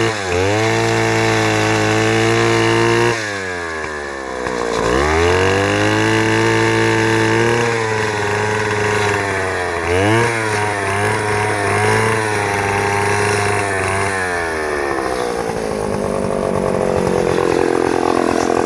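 Chainsaw engine running at high speed, its pitch dipping sharply and climbing back a few times, then falling away to a lower, steadier speed over the last few seconds.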